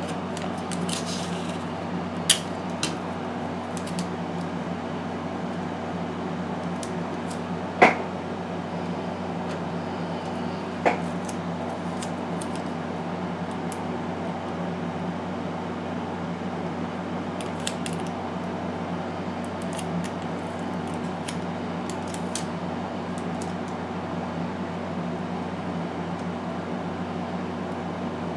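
Steady low hum of a room air conditioner or fan, with a few sharp small taps and clicks of plastic model parts and tools being handled; the loudest tap comes about eight seconds in.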